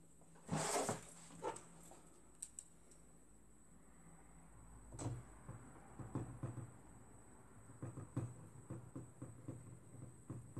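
Hands working on a printer fuser unit during reassembly: a brief rustling scrape about half a second in, then scattered light clicks and taps that come thicker in the second half.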